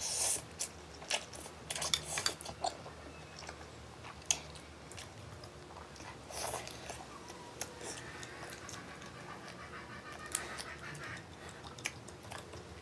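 Close-up eating sounds: a slurp of instant noodles at the start, then chewing and biting on shrimp with short wet clicks and smacks.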